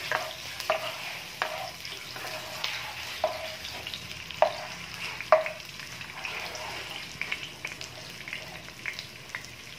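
Sliced onions sizzling in hot oil in a non-stick wok while a spatula stirs them, knocking against the pan every second or so with a brief ring after each knock.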